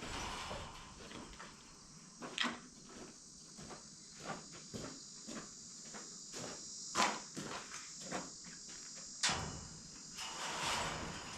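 Irregular sharp clicks and knocks of chicken wire being handled and fastened on a wooden frame, the loudest three spread a few seconds apart. Insects chirp steadily behind them.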